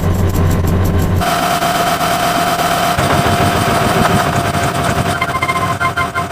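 A string of separate sound effects: a low engine-like hum that cuts off suddenly about a second in, then a steady higher tone, joined near the end by rapidly pulsing organ-like tones.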